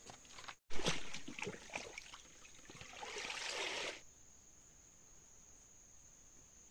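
Water splashing and trickling in irregular bursts, ending in a short rush of pouring water that stops abruptly; after it only a faint, steady, high insect drone remains.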